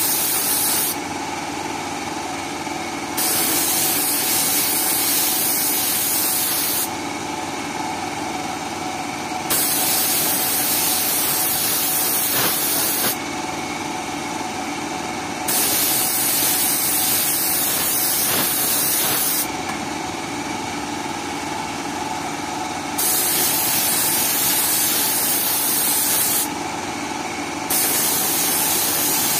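Spray gun hissing in repeated bursts of about three to four seconds, with short pauses between, as silver paint is sprayed onto an aluminium engine casing. A steady motor hum runs underneath.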